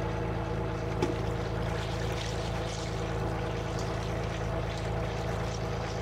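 Fishing boat's engine running steadily, with liquid poured from a steel bowl into a pot of marinated fish, splashing and sloshing as a hand mixes it from about two seconds in.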